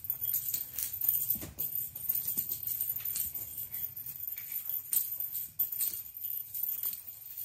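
A small jingle bell on a cat toy jingling in irregular shakes and clicks.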